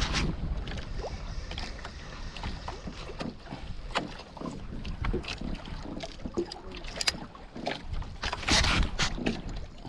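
Water lapping and slapping against a small outrigger boat's hull, with wind on the microphone and scattered sharp clicks and knocks. A louder rush of noise comes near the end.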